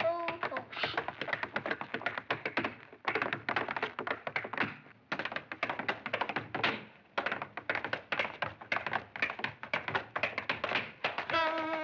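Two dancers' tap shoes beating out a fast tap-dance routine of rapid, crisp clicks, with short breaks about 3, 5 and 7 seconds in. A held note sounds near the end.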